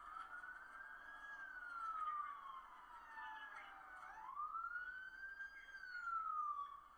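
Police car sirens of arriving backup wailing, the pitch sweeping slowly up and down about every three seconds, with a second siren overlapping the first around the middle.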